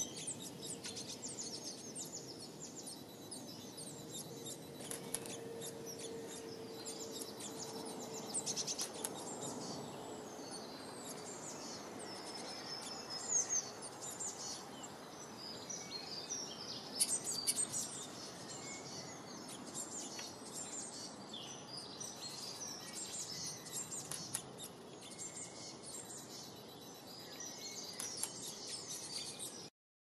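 Small songbirds chirping and twittering in quick, high-pitched bursts throughout, over a steady outdoor background hiss.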